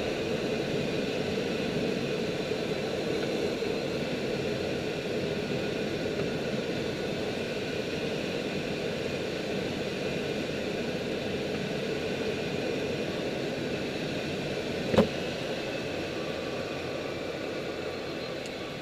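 Steady rush of airflow over an HpH 304S Shark glider's canopy, heard inside the cockpit. One short sharp click sounds about fifteen seconds in.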